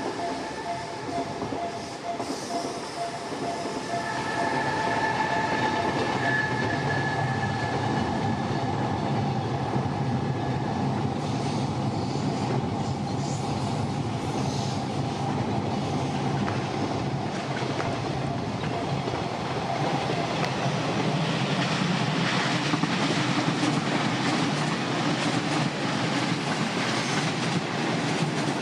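A train running through a Japanese railway level crossing: wheel rumble and rail clatter rise about four seconds in and stay loud. Over it, the crossing's electronic warning alarm pulses at first, then changes to a higher tone that fades out under the train noise after about ten seconds.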